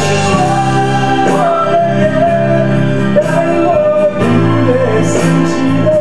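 A man singing a melody into a microphone, holding long wavering notes, over a musical accompaniment.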